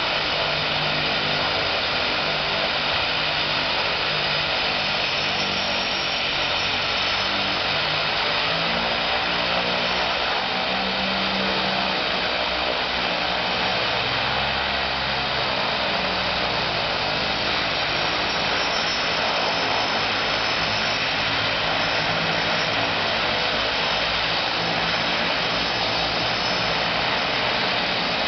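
de Havilland Canada DHC-6 Twin Otter floatplane's two Pratt & Whitney PT6A turboprop engines running steadily at low power with the plane at the dock. A continuous turbine whine over the propellers' drone, with the low tone shifting slightly now and then.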